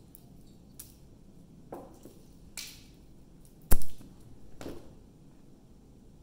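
A cat pouncing on a hardwood floor: a few soft thumps and scuffs, with one sharp thud of paws landing hard about three and a half seconds in.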